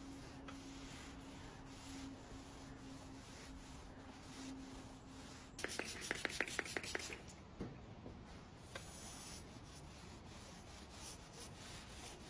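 Old charcoal box iron rubbing faintly as it slides over a cotton shirt. About six seconds in comes a quick run of spray-bottle pumps, the loudest part, misting water onto the fabric.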